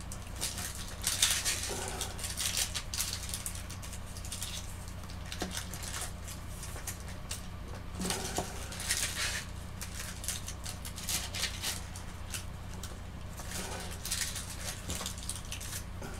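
Scattered small clicks, taps and scrapes of wooden-handled sculpting tools being handled and set down on a work board, over a steady low hum.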